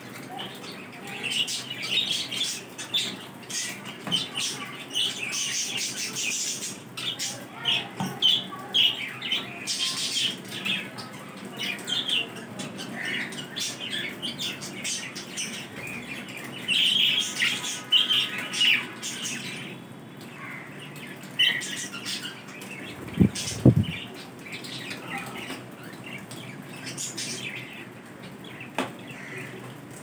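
A flock of budgerigars chirping and chattering, with flutters of wings as they hop and fly about. About three-quarters through come two loud thumps close together.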